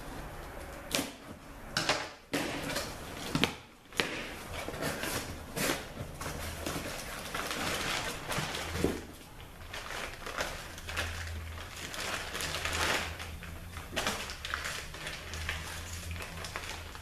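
Workbench handling of transmission parts as a new solenoid pack is readied for the 42RLE valve body: several sharp clicks and knocks of hard parts being picked up and set down, then a steady rustling with small clicks and rattles.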